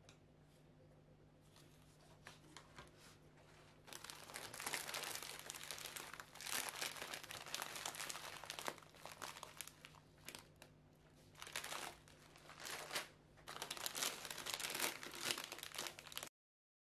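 Plastic snack packaging crinkling as sweet packets are lifted and handled in a cardboard box, in loud spells with short pauses from about four seconds in, over a faint steady hum. It stops abruptly near the end.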